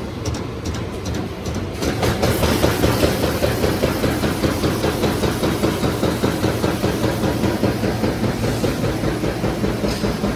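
High-speed double-line roll bag making machine running, a steady rapid mechanical clatter that gets a little louder about two seconds in.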